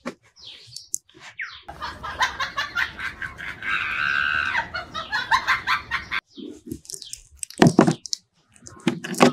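A chicken clucking, played as a sound effect. It starts abruptly about two seconds in and cuts off about four seconds later, with a few short sounds before and after.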